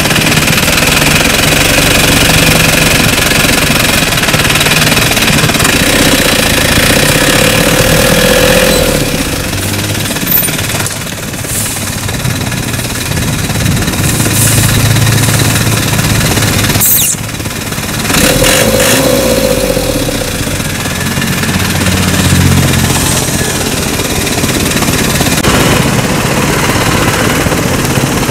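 Motor vehicle engine running steadily and loudly, with a steady held tone sounding twice, each for about three seconds, about a quarter and two thirds of the way in.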